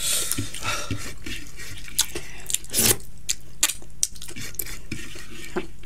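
Close-up wet mouth sounds of a person eating rice by hand: a string of sharp lip smacks and finger-sucking clicks, the loudest a little before the middle.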